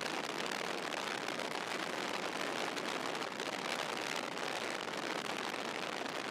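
Steady, even rushing hiss of storm wind and rain around a moving car.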